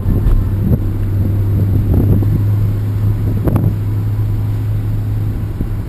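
Renault Kangoo 1.6 petrol van's engine running with a steady low hum, with a sharp click about three and a half seconds in.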